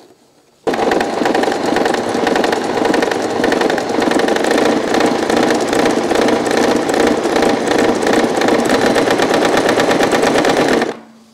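Singer Promise 1412 electric sewing machine running at a steady speed, stitching a straight stitch through cotton cloth with rapid, even needle strokes. It starts under a second in and stops near the end.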